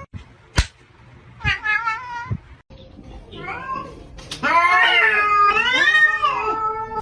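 A cat meowing three times, the last call long, loud and wavering up and down in pitch. A sharp click comes shortly before the first meow.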